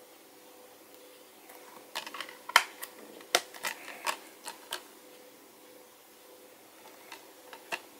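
Plastic Blu-ray case being shut and handled: a run of sharp clicks and snaps between about two and five seconds in, the loudest two close together, then two lighter clicks near the end.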